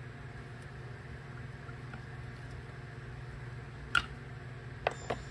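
Small parts being handled on an aluminium transmission valve body, giving light clicks: one sharp click about four seconds in and two more near the end, over a steady low hum.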